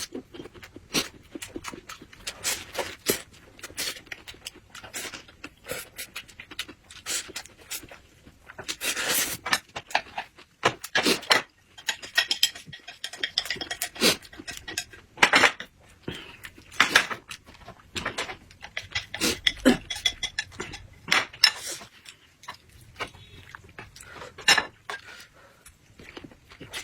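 Eating noises: chewing with an irregular run of clicks and clinks from utensils and dishes.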